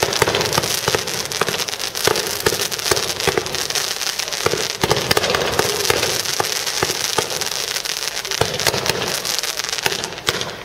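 Fireworks: ground fountains and rising comets spraying sparks, a steady hiss packed with rapid sharp crackling that dies down just before the end.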